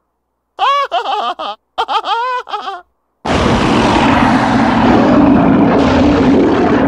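A cartoon character's high, warbling vocal sounds in a few short bursts, then, about three seconds in, a loud, sustained monster roar from a huge fanged cartoon beast, coarse and full of low rumble, starting abruptly.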